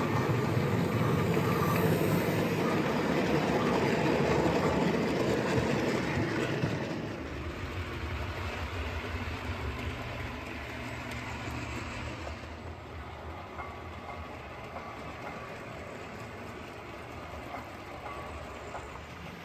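OO gauge model diesel train running along the track, louder for about the first seven seconds and then quieter as it moves farther off.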